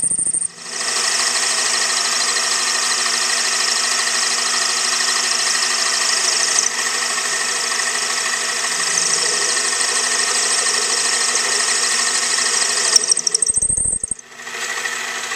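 Metal lathe running steadily with a high whine and hiss, cutting relief into the bottom of a tooth cutter made from drill rod steel. The sound drops out briefly just after the start and again near the end.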